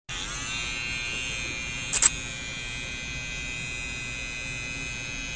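Electric hair clippers running with a steady high buzz. About two seconds in come two short, very loud, high-pitched blips.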